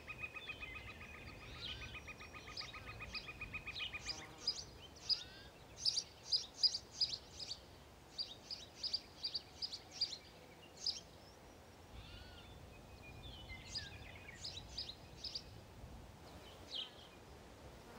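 House sparrows chirping: short, sharp chirps, thickest in a quick run from about five to eleven seconds in, then scattered. Under the first chirps a steady, rapidly pulsing tone runs and cuts off about four seconds in.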